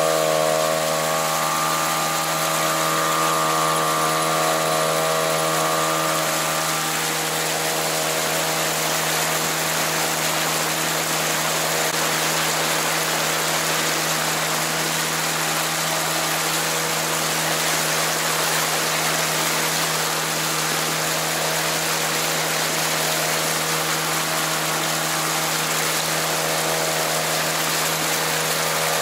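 Mercury 3.3 two-stroke single-cylinder outboard motor running steadily under way. A higher whine in its note fades out several seconds in and comes back near the end.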